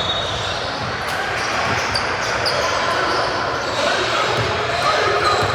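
Basketball game sound in a large gym: a ball bouncing on the hardwood court over a steady hubbub of players and spectators, echoing in the hall.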